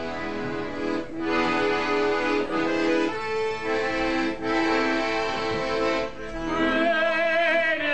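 Accordion music playing sustained chords, with the notes changing about every second.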